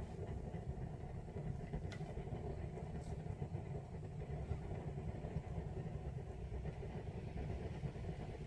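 Kitten purring close to the microphone: a steady low rumble.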